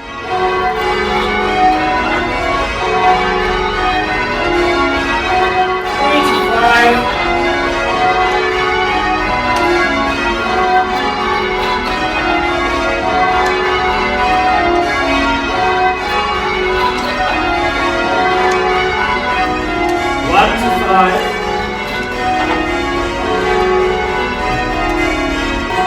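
St Mary's Cathedral's ring of change-ringing bells, the heaviest about 1,700 kg, ringing changes: a continuous, loud run of overlapping bell strikes at different pitches.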